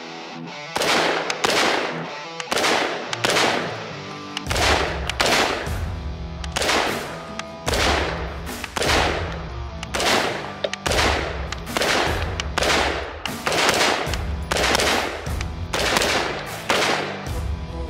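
Bushmaster ACR rifle in 5.56×45 mm firing repeated shots, often two in quick succession, each with a short ringing tail, over background music whose low bass comes in about four seconds in.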